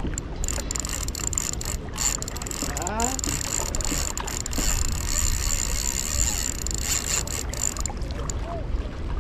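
Shimano Twinpower 4000XD spinning reel whirring steadily under the load of a hooked fish, with scattered clicks. The whirring stops near the end.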